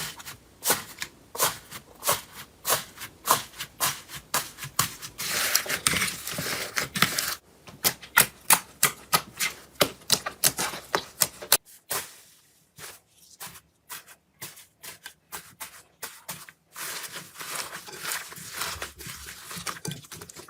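Slime being squeezed and pressed by hand, giving a fast run of sharp clicks and crackling pops, densest around six seconds in. After a short break near twelve seconds the crackling is sparser and softer.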